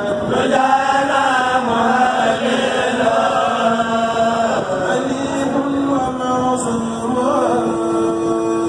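A Mouride kourel, a group of men, chanting a khassida (religious poem) together without instruments. Several voices weave the melody while one holds a long steady low note, changing to a new held note near the end.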